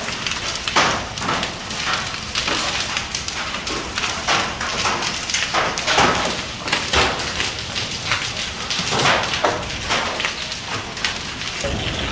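Heavy hail falling, hailstones clattering on a hard courtyard floor and nearby surfaces as a dense, irregular patter with many sharp clicks.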